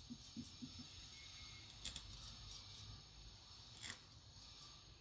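Near silence: faint handling of metal piston-pump parts by hand, with two small clicks about two seconds apart over a faint hiss.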